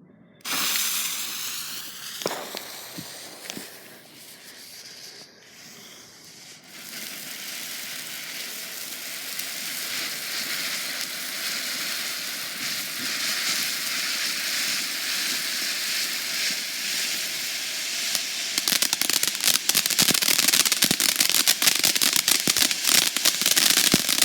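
Pyrofan firework fountain burning. After ignition it makes a steady hiss that builds and holds, then turns into dense, rapid crackling about 18 seconds in.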